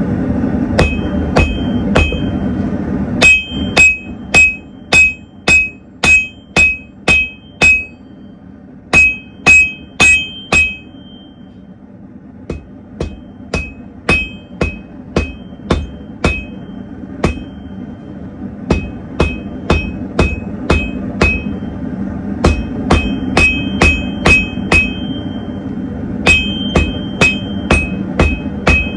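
Hammer blows on hot steel at the anvil while forging a blade, about two strikes a second in runs with short pauses, each blow ringing with a clear metallic tone. The blows are heaviest in the first half and lighter after that. The forge burner runs steadily underneath.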